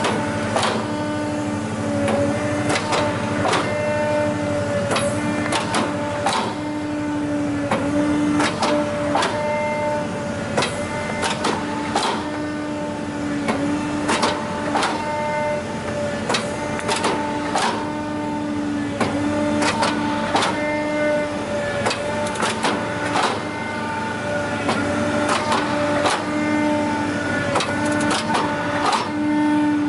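BrikStar 200-16 hydraulic briquetting press running: a steady hum with a clear tone that dips or breaks briefly every second or two. Frequent irregular clicks and knocks run through it as the machine works.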